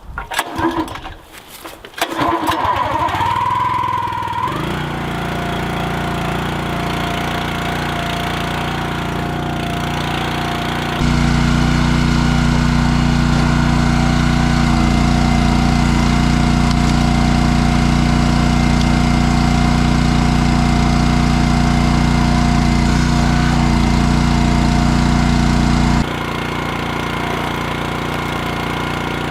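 Small gasoline engine, most likely the log splitter's, starting up. After a second or two of ragged rattling it catches, its pitch rises, and it settles into a steady run. The running sound is plainly louder for a long stretch in the middle, then drops back.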